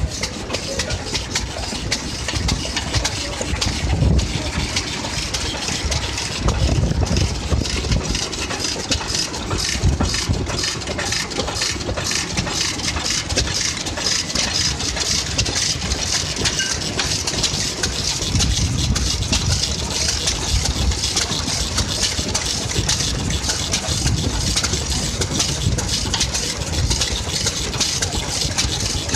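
Old kerosene-fuelled stationary engines with open flywheels running steadily, a continuous mechanical chugging.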